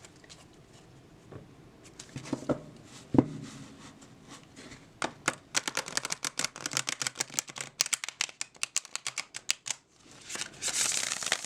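Tarot cards being handled and riffle shuffled: scattered taps and a knock, then a quick run of card edges flicking past each other about five seconds in, ending in a short rush as the cards bridge and settle. The gilt-edged deck has just been cracked and the cards are not sticking together.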